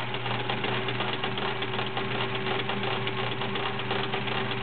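Sears Kenmore 1774 sewing machine running steadily through a stretch zigzag stitch: a steady motor hum under rapid, even ticking of the needle and feed. The internals are a little noisy in zigzag even though everything has been oiled, and the owner doesn't know why.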